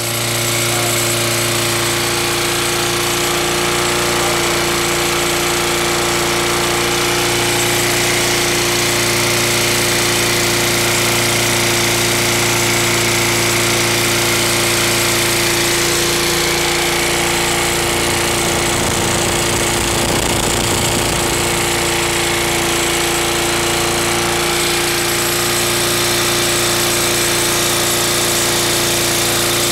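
Small single-cylinder lawn mower engine running steadily on gasoline vapor drawn from a bubbler vaporizer through a hose in place of its carburetor. The running turns uneven for several seconds past the middle, then steadies again.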